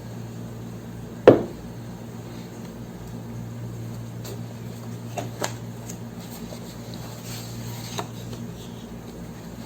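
A steady low hum, with one sharp knock about a second in and a few light clicks later on.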